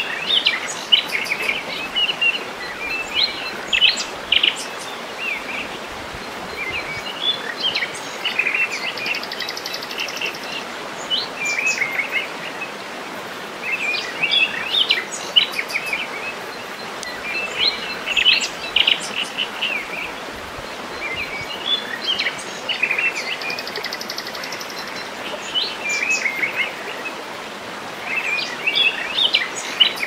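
Small waterfall running steadily over rocks, with songbirds chirping in short phrases that come every three to four seconds.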